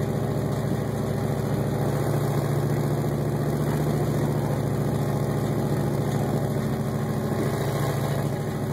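Dodge Ram pickup truck's engine running steadily at low speed while towing a sled through deep snow.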